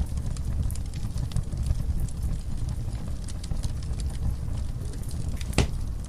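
Burning wood logs crackling, with a low rumble of flame under frequent small sharp pops and one louder pop near the end.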